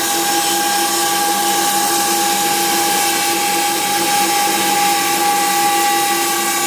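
Laguna 18BX bandsaw with a tungsten carbide blade running steadily with a whine while slowly resawing a thin slice of pine, with dust extraction running.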